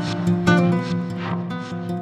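Background music: plucked notes over a held low tone.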